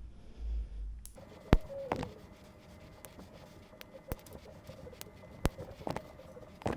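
Zip ties being snipped with cutters: a few sharp, separate snaps, the loudest about a second and a half in, with handling noise between them.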